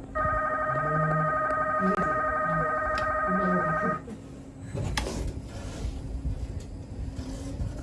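An electronic ringing tone, several pitches warbling rapidly together like a telephone ringer, sounds for about four seconds and then stops.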